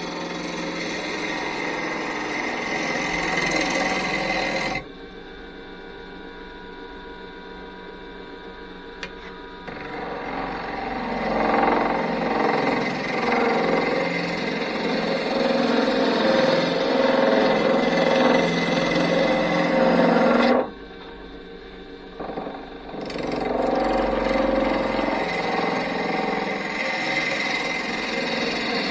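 Wood lathe spinning a hardwood blank while a gouge rough-turns it toward round, a rapid chattering cutting noise from the not-yet-round wood. The gouge comes off the wood twice, about 5 s and 21 s in, leaving only the lathe motor's hum for a few seconds before cutting resumes.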